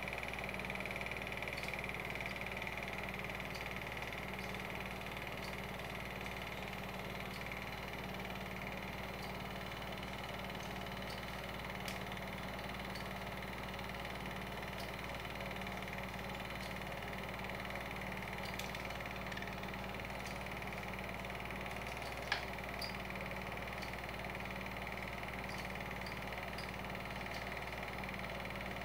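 Cine film projector running steadily: a motor and fan hum with a steady whine and faint regular ticks, and one sharper click late on.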